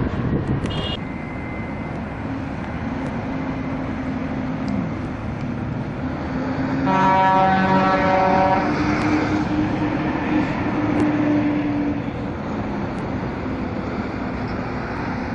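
A bus horn sounds one blast of nearly two seconds, about seven seconds in, over a steady engine hum and traffic noise.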